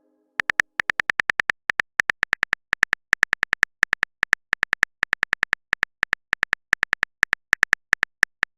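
Rapid run of short, identical tapping clicks, several a second with small irregular pauses, starting about half a second in: a phone-keyboard typing sound effect.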